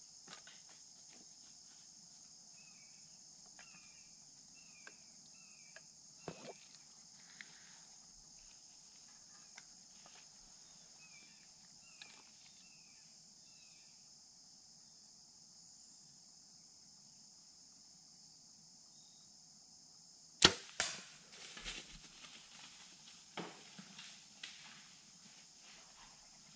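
Compound bow shot: one sharp crack about three-quarters of the way through as the bow fires and the arrow strikes the buck, which the hunter later says he could hear hit solid. A few seconds of knocking and rustling follow. Crickets chirr steadily throughout.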